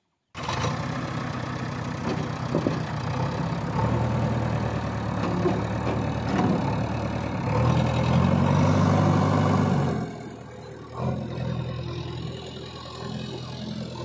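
JCB backhoe loader's diesel engine running as the machine drives. It revs louder for a couple of seconds in the middle, then eases back about ten seconds in.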